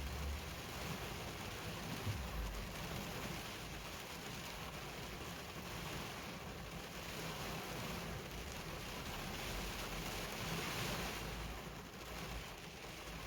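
Heavy rain falling steadily, an even hiss that swells a little near the end, with a few low rumbles early on.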